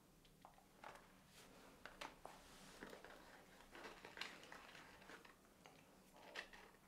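Near silence with faint, scattered small clicks and rustles of hands handling a cigarette as it is passed across a table.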